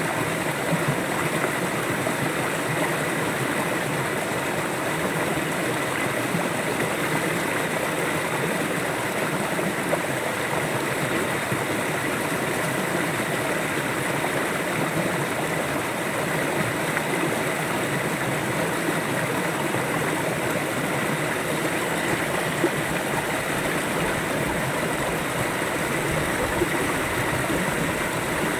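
River water flowing steadily, an even rushing and gurgling with no breaks.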